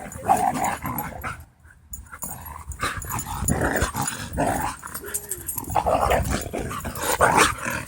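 Dogs growling during rough play. The growling breaks off briefly about one and a half seconds in, then runs almost without pause.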